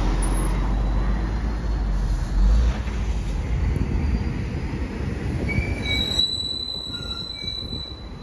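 A heavy vehicle rumbles past and fades away. About six seconds in come thin, high-pitched squeals.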